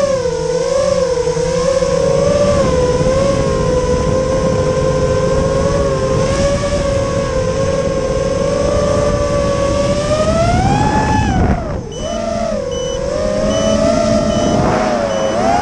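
FPV quadcopter's brushless motors and propellers whining in flight, the pitch wavering up and down with throttle. The whine climbs about eleven seconds in, drops sharply for a moment, then climbs again near the end. From about eleven seconds a faint high beep repeats at an even pace.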